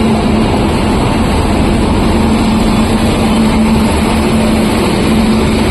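Train running: a loud, steady rumble with a low hum that keeps fading in and out.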